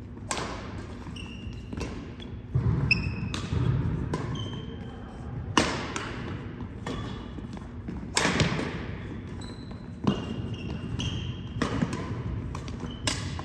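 Doubles badminton rally: sharp racket strikes on the shuttlecock about every second and a half, each echoing in a large hall, with short squeaks of shoes on the hardwood court between the strikes.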